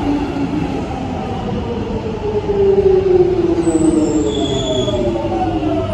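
London Underground train running into a platform behind platform screen doors, its motor whine falling steadily in pitch as it slows, over a continuous rumble. A brief high squeal comes in a little past halfway.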